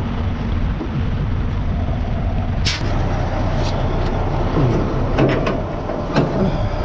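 Semi-truck diesel engine running steadily, with a few sharp clicks and knocks over it, several close together in the second half.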